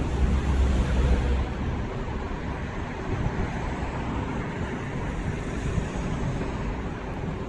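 Wind buffeting a moving phone microphone over steady city traffic noise; the low rumble is heaviest for the first second and a half, then settles.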